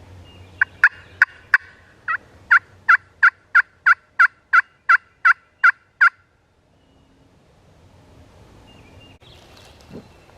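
Turkey hen yelping: a run of about sixteen loud, sharp yelps at roughly three a second, stopping about six seconds in.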